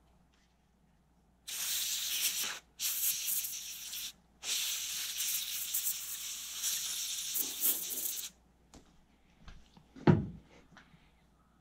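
Aerosol spray can hissing in three bursts, two short and then one of about four seconds, blasting dust and crud out of a small graphics-card cooling fan. One thump near the end.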